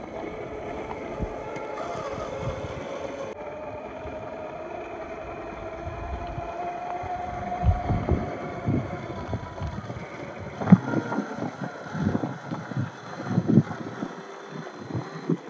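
Electric RC scale crawler driving over a rough trail. Its motor and gear drivetrain whine, the pitch wavering and rising slightly with throttle. From about halfway in come irregular knocks and clatters of tyres and chassis against rocks.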